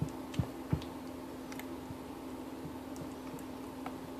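Silicone spatula stirring a wet, gooey liver and goat cheese mixture in a mixing bowl, with a few soft knocks against the bowl in the first second and faint ticks after. A steady low hum runs underneath.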